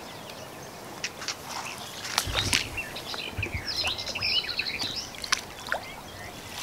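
A songbird singing quick, high chirping phrases about halfway through, over light splashing and sharp clicks as a landing net is dipped into the river.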